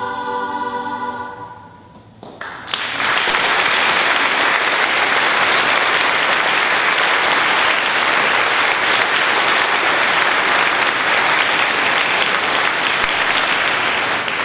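A children's choir holds its final chord, which fades out in the first second or two. Then audience applause starts and runs loud and steady for about twelve seconds, stopping near the end.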